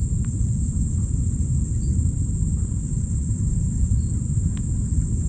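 A steady, high-pitched drone of crickets over a low, steady rumble of wind on the microphone, with a faint click or two.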